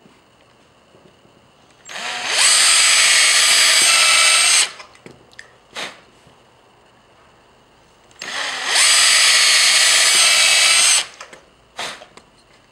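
Power drill run in two bursts of about two and a half seconds each, rising in pitch as it spins up at the start of each burst and then holding steady, with a few light clicks between the runs.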